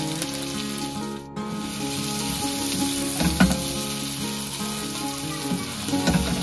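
Chopped onion, tomato and green capsicum sizzling in hot oil in a nonstick wok, stirred and tossed with a silicone spatula. The sizzle drops out for a moment about a second in, and a couple of louder stirring strokes come around the middle and near the end.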